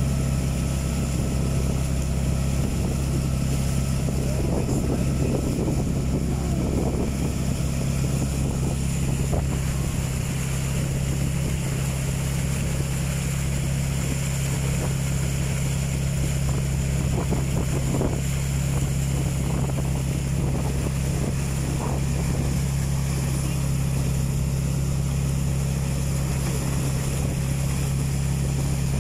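Outrigger boat's engine running steadily at cruising speed, a constant low drone, with water rushing and splashing along the hull and bamboo outriggers.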